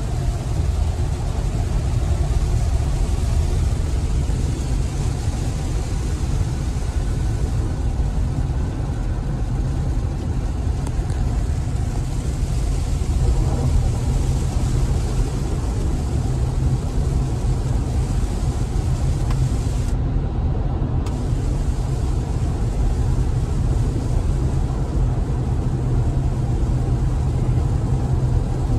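Steady low road rumble and wet-tyre hiss heard inside the cabin of an electric Tesla Model Y cruising at highway speed on rain-soaked pavement, with no engine note.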